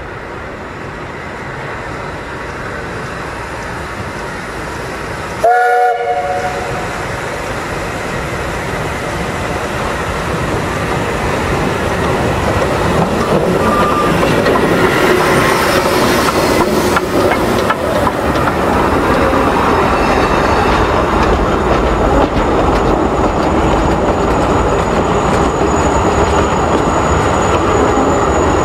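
Narrow-gauge steam train drawing nearer, its running noise and wheel clatter growing louder over the first fifteen seconds or so and then holding steady. The locomotive gives one short whistle blast about five and a half seconds in.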